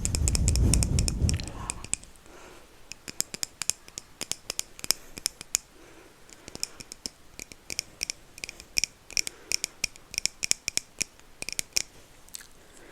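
Close-miked crisp clicks and taps, several a second in irregular runs, made as an ASMR trigger. A low rumble sits under the first second or so.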